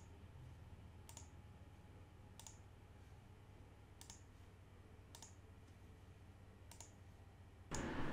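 Faint computer mouse button clicks, about seven of them, a second or so apart, as the cursor steps through on-screen prompts. Near the end a louder steady hiss comes in.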